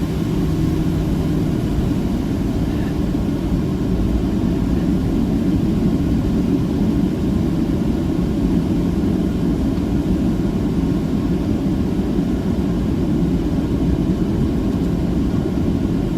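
Steady low cabin rumble of a jet airliner taxiing after landing, its engines at idle.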